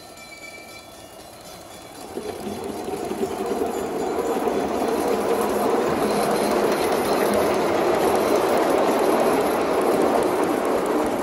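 Ride-on miniature train rolling across a steel truss bridge overhead: a rumble of wheels on the steel span that builds from about two seconds in, stays loudest through the middle and eases slightly near the end.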